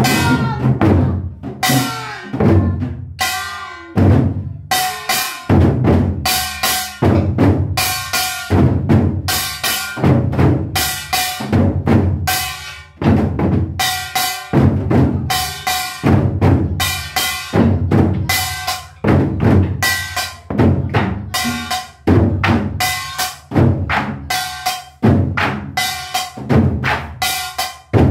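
Korean multi-drum set (moduem-buk) beaten with sticks in a driving nanta rhythm, steady strokes with ringing tones between them, over pitched musical accompaniment.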